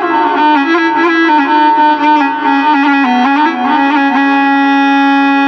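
Electronic keyboard playing an ornamented solo melody with a reedy, woodwind-like tone, an Iraqi mawwal instrumental interlude, settling into a long held note for the last couple of seconds.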